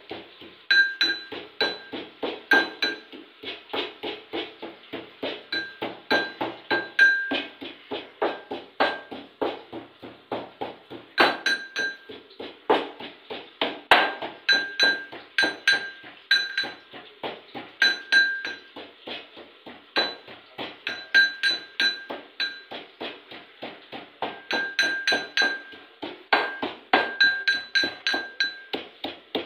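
Metal pestle pounding ginger in a metal mortar: fast, even strikes, several a second, with metallic clinks ringing after many of them.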